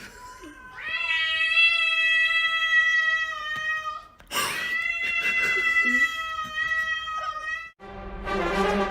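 Domestic cat yowling: two long, drawn-out calls of about three seconds each at a steady pitch, with a short noisy burst between them.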